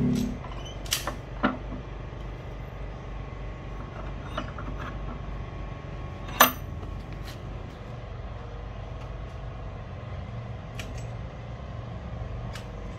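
Scattered knocks and clicks of a wooden blank and a steel bench vise being handled, the loudest a sharp ringing clank about six seconds in, over a steady low rumble.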